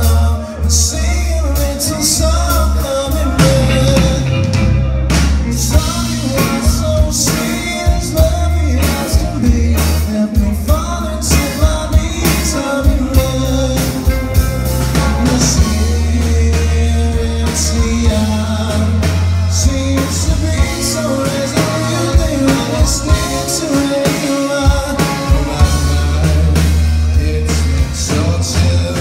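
Live rock band playing: electric guitars, drum kit and keyboard, with a male lead vocal.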